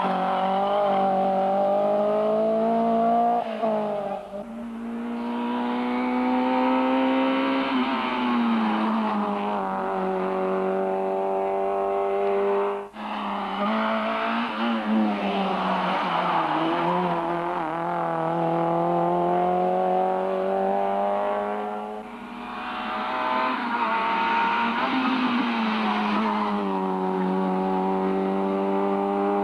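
Rally car engines revving hard on a stage, the pitch climbing and dropping over and over as the drivers change gear and lift for corners. The sound breaks off suddenly about thirteen seconds in and picks up again straight away.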